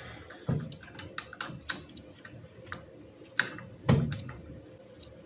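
Screwdriver and small screws and washers clicking and tapping against the plastic housing of a chainsaw attachment for an angle grinder as it is put together by hand. Irregular light clicks, with a louder knock about four seconds in.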